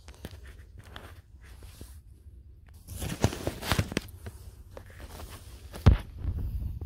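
Handling noise from a phone held in the hand: rubbing and knocking against the microphone, with a few knocks about three seconds in and a sharp thump just before the six-second mark.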